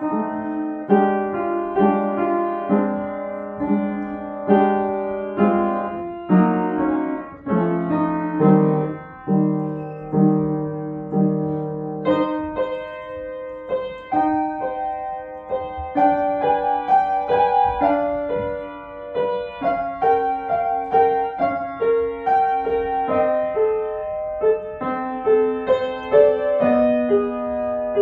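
Upright piano played solo: a classical piece in an unhurried tempo, a melody over lower notes, with held low notes for a few seconds about a third of the way in.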